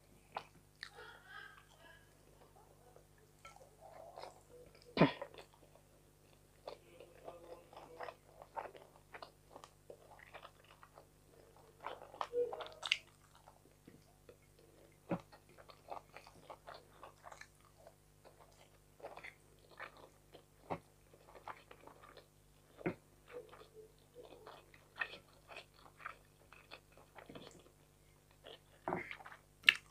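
Close-up chewing and biting of a person eating fried fish and rice by hand, with irregular sharp mouth clicks, the loudest about five seconds in and around twelve to thirteen seconds.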